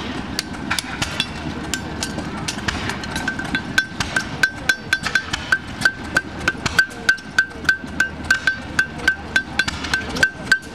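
Farrier's hammer striking a steel draft horseshoe on an anvil, each blow leaving a short high ring. The strikes start irregular, then from about four seconds in settle into a steady, louder rhythm of about three blows a second.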